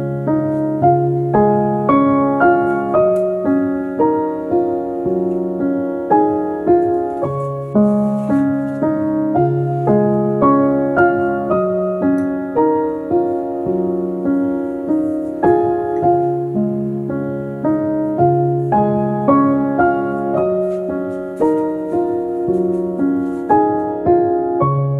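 Background piano music: a steady, gentle piece of evenly paced struck notes, each fading away, over a repeating low accompaniment.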